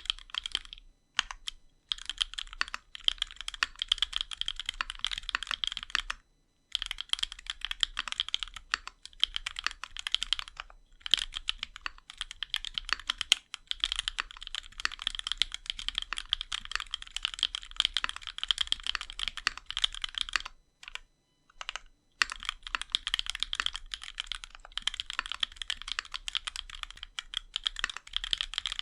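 Fast typing on a custom mechanical keyboard: a CannonKeys Onyx with a brass plate, Ramaworks Duck switches and GMK keycaps. Dense, rapid key clicks come in runs of several seconds, broken by brief pauses.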